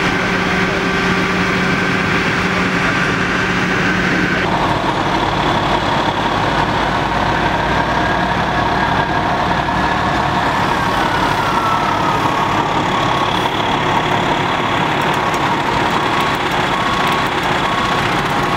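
Heavy diesel fire truck engines running steadily, a loud continuous drone with a steady whine. The sound changes abruptly about four and a half seconds in, and a tone falls in pitch a little past the middle.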